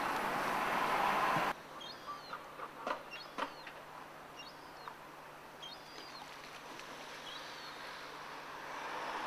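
Outdoor harbour ambience: a stretch of louder outdoor noise that cuts off suddenly about one and a half seconds in, then a quiet steady hum with several short bird chirps and a few light knocks.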